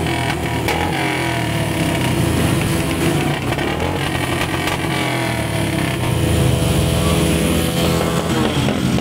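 Several motorcycle engines running and revving together at close range, one rising in pitch about eight seconds in.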